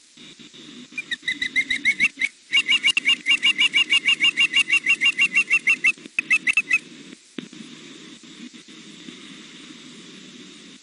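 Juvenile osprey food calling: a fast run of short, high chirping whistles, about six a second, starting about a second in and stopping after about six seconds.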